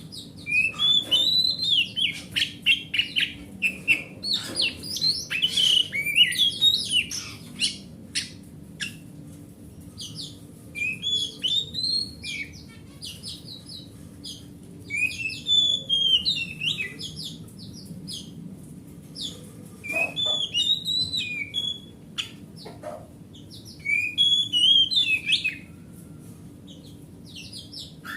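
Oriental magpie-robin (kacer) singing in bouts of loud, varied whistled phrases a few seconds long, broken by short pauses, over a faint steady low hum.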